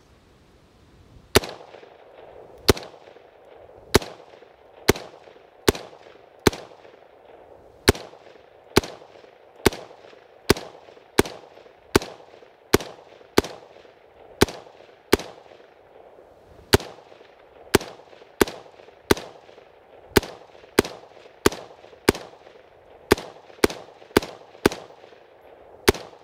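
A BCM AR-15 rifle firing semi-automatic shots at a steady pace of about one a second, roughly thirty in all, with each shot ringing out briefly. The rifle is dry and heavily carbon-fouled, never cleaned or oiled, and it is cycling round after round without a stoppage.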